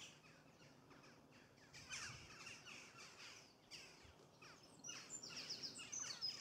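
Faint jackdaws calling with short repeated notes, then a wren starts its rapid, high trilling song about five seconds in.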